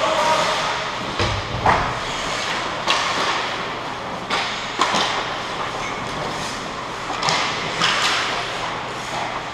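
Ice hockey play: skate blades scraping and carving the ice, with about half a dozen sharp clacks of sticks and puck. A heavier low thump comes about a second and a half in.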